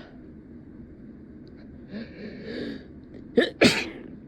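A person's breathy, catching gasps as a sneeze builds, then a sneeze about three and a half seconds in, let out in two sharp bursts close together.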